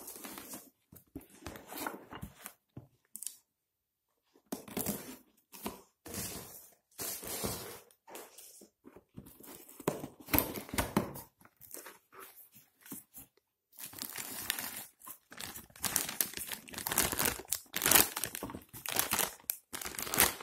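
White cardboard box being pulled open by hand, in irregular bursts of tearing and rustling with a short pause a few seconds in, then a plastic packaging bag crinkling steadily and more loudly over the last several seconds.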